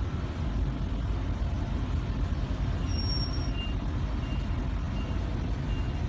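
Steady low vehicle rumble with no speech. From about halfway through, faint short high beeps repeat about every two-thirds of a second.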